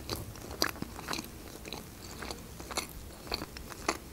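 A person chewing a mouthful of sushi roll: a scatter of small, faint mouth clicks.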